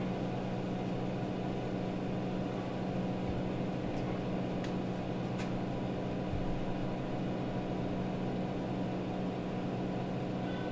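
Steady low electrical hum of room equipment, with a few faint short ticks of a marker on a whiteboard around the middle.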